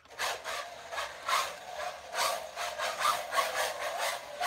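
Small brushless RC drift car running and sliding on carpet, its motor and tyres rising and falling in uneven surges as the throttle is worked.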